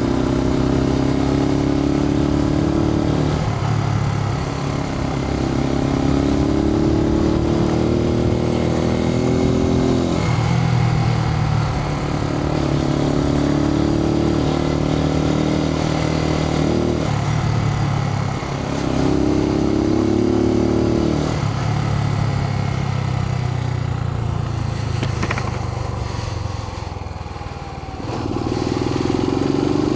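Suzuki TU250X's single-cylinder engine pulling a motorcycle through the gears: the engine pitch rises, breaks off at each shift and climbs again, four times. Past the middle it drops lower and falls away as the bike slows, then picks up again near the end. The sound comes through a microphone inside the rider's helmet, with wind noise underneath.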